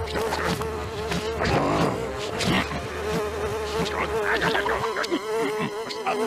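Fly buzzing: a steady, slightly wavering drone, with scattered short clicks over it.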